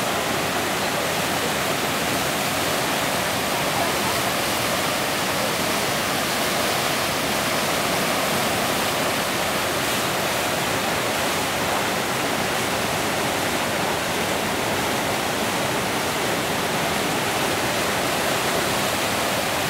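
Tidal rapids at flood tide: a steady, unbroken rush of churning white water.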